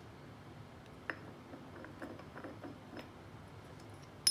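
Faint light clicks and taps of steel transaxle gears being handled and slid onto their shafts inside the open gearbox case, with a sharper click about a second in. At the very end comes a loud, ringing metal clink.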